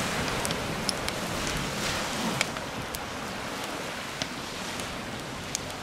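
Small waves washing onto a stony gravel beach with wind, a steady hiss with a few faint ticks scattered through it.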